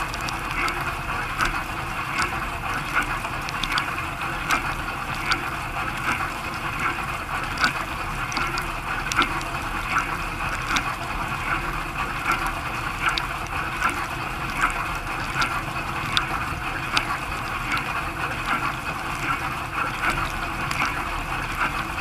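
Dishwasher wash cycle heard from inside the tub: water jets spraying and splashing steadily over the dishes and rack. Sharp spattering ticks recur about once a second, over a low steady hum.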